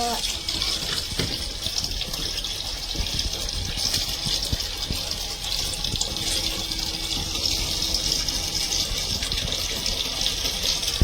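Water running or spraying in a steady hissing rush, with a few faint clicks.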